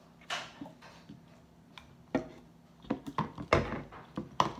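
A spoon clicking and knocking against a plastic bowl while slime is stirred: scattered light taps, growing busier after about two seconds, with the sharpest knocks a little past the middle.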